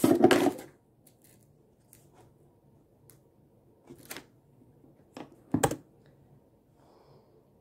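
A loud thump at the start, then scattered short, sharp clicks and taps on a laptop's keys and trackpad, a few seconds apart and close to the microphone.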